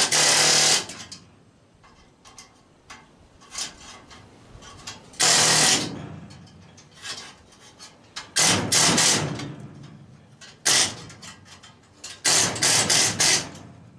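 A hand-held power tool run in short bursts on furnace sheet metal. There are about five bursts of half a second to a second, with quiet gaps between them.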